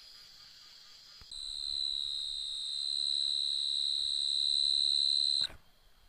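An insect's steady, high-pitched buzzing call: one unbroken note that starts abruptly a little over a second in, swells slightly and cuts off suddenly near the end, over a fainter insect hiss.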